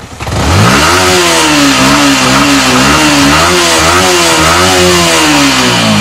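Yamaha MT-15 V2's 155 cc single-cylinder engine free-revving through a loud exhaust while standing still. The revs climb quickly just after the start, are held high with small rises and dips for about four seconds, then drop near the end.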